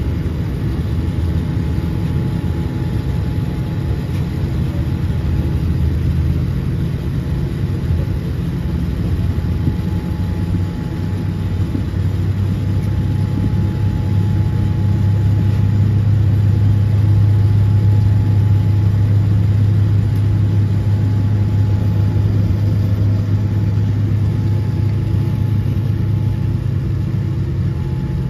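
Steady low hum of an airliner heard from inside a Boeing 787-10 cabin, with a faint high steady tone above it; the hum swells about halfway through and eases off again near the end.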